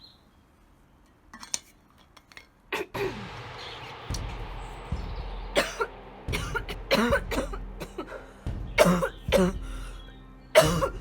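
A woman coughing in repeated short fits, starting about three seconds in, over steady background music.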